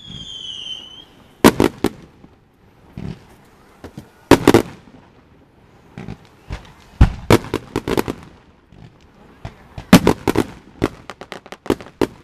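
Aerial fireworks shells bursting in clusters of sharp bangs and pops every couple of seconds, turning to a fast crackle near the end. A brief falling whistle comes right at the start.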